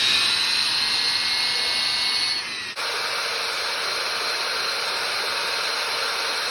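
Electric drill running steadily at high speed, drilling a hole in an AR-15 magazine, with a high whine over a hiss. The whine dips slightly and breaks off for an instant a little under three seconds in, then carries on.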